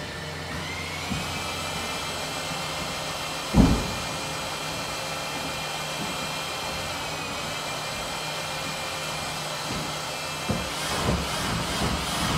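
A steady motor running with a whining tone, its pitch rising slightly in the first couple of seconds and dipping again about seven seconds in. One loud thump comes about three and a half seconds in, and a few knocks and clicks follow near the end.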